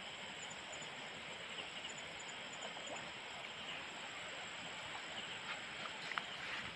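Steady rush of shallow stream water, with a few faint ticks and one sharper click about six seconds in.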